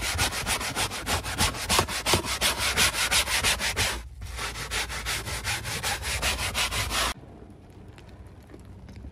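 Hand scrub brush scrubbing foamed cleaner into cloth seat upholstery in fast back-and-forth strokes, several a second, with a short break about four seconds in. The scrubbing cuts off abruptly about seven seconds in, leaving a much quieter steady background.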